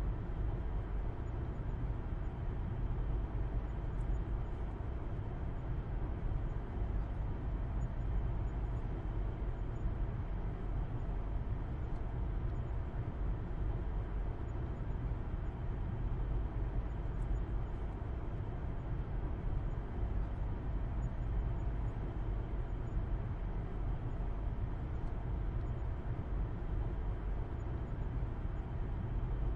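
Steady low rumble of a car driving, heard from inside the cabin: engine hum and road noise with no change in speed.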